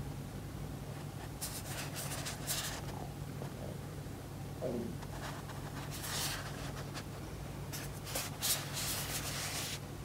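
Knit-gloved hands handling and turning a cardboard retail box, the gloves rubbing and sliding over the box in several scratchy bursts, over a steady low hum.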